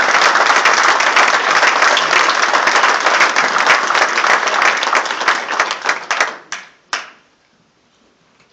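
Audience applauding, a dense patter of many hands clapping that thins out after about five seconds and ends with a last few single claps about seven seconds in.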